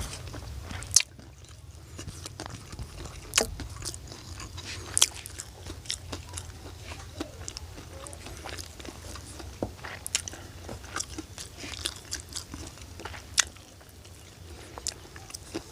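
Close-up eating sounds: irregular crunching bites and chewing of food, with a few sharper, louder crunches, over a steady low hum.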